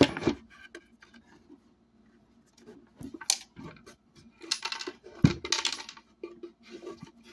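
Small metal screws being pulled from a speaker cabinet and dropped, clinking and rattling on a hard surface in scattered clicks and a busy cluster, with a heavier knock about five seconds in.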